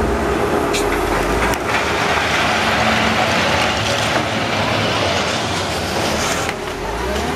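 Wheel loader's diesel engine running as its steel bucket shoves and scrapes into a pile of broken drywall and debris, with rattling, clattering and a few sharp knocks.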